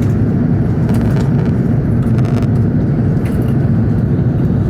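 Steady cabin noise of an Airbus A380 airliner in flight, heard from the upper-deck passenger cabin: a constant low rumble of engines and airflow. A few faint clicks sound over it.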